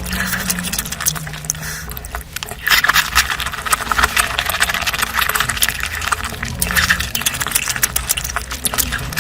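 Close-miked eating: wet chewing and smacking mouth sounds, a dense run of small clicks and crackles.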